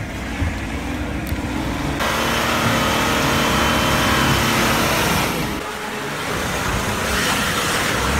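Lifted Nissan Patrol off-roader's engine running hard under load while its big mud tyres churn through mud and snow. The sound changes abruptly about two seconds in and again about five and a half seconds in, and is loudest in the middle stretch.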